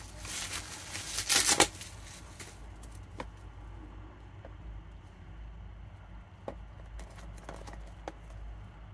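Bubble-wrap packaging crinkling and rustling as it is pulled off a boxed cube, loudest in the first two seconds. After that, quiet handling of the cardboard box with a few faint taps.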